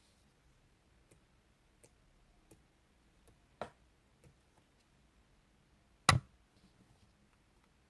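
Scattered light clicks and taps, with a louder tap about three and a half seconds in and a sharp knock about six seconds in.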